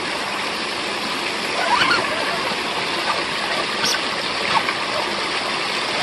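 Small waterfall cascading over rocks: a steady rush and splash of falling water.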